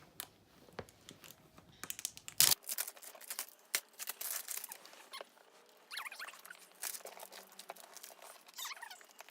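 Toy packaging being torn and crinkled open by hand: a run of rustles, tears and clicks, with one loud rip about two and a half seconds in.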